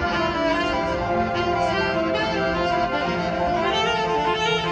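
Marching band playing on the field, its brass and saxophones holding sustained chords.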